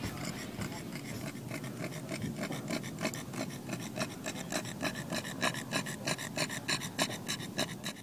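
Black pug panting rapidly, a rhythmic raspy breath about four times a second.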